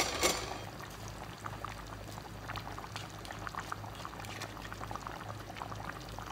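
Tomato-sauce stew simmering in a pot on a gas stove: a steady scatter of small bubbling pops over a low hum, with a brief rustle at the start.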